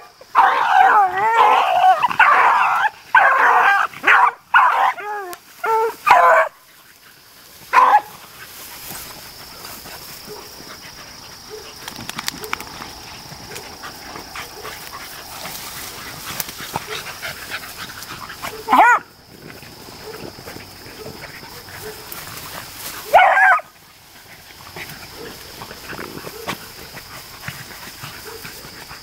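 Beagles baying while running a rabbit's scent trail: a burst of overlapping, wavering bays for the first six seconds or so, then only a single bay now and then, about three more.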